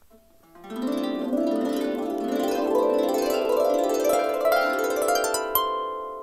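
A homemade 36-string Celtic lever harp of mahogany and spruce being played: rapid rising runs of plucked notes that ring over one another, starting about half a second in, with the strings left ringing and fading near the end.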